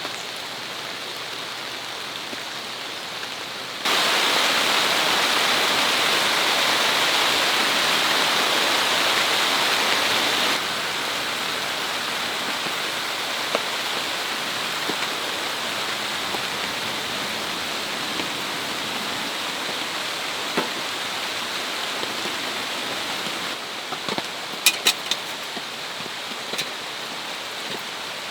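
Steady rainfall. It becomes abruptly louder about four seconds in, drops back about ten seconds in, and a few sharp drip taps come near the end.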